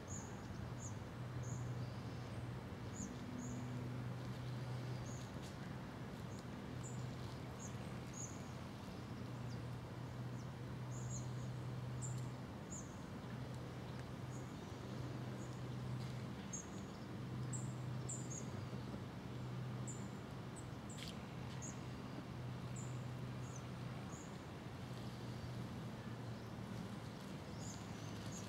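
Outdoor ambience: a low hum that breaks off and resumes every second or two, with frequent brief high-pitched chirps over a steady hiss.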